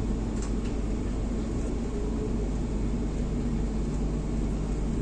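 Moving Vande Bharat Express train heard from inside the coach: a steady low rumble, with a couple of faint clicks about half a second in.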